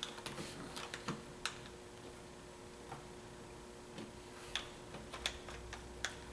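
A dozen or so light, sharp clicks and taps at irregular spacing, the sound of small objects being handled, over a faint steady hum.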